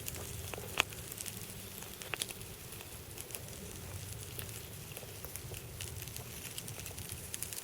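Dense small clicks and crackles of dry leaf litter, of the kind made by a busy ant nest, over a steady low rumble.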